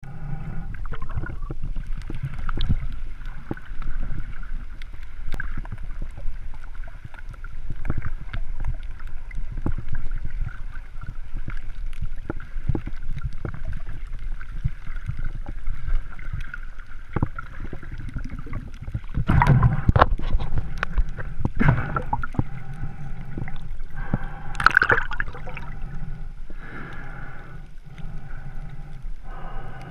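Underwater sound heard through an action camera's waterproof housing while snorkeling: a muffled churning of water with gurgling and scattered sharp clicks and crackles. A louder rush of water comes about two-thirds of the way in, and another a few seconds later.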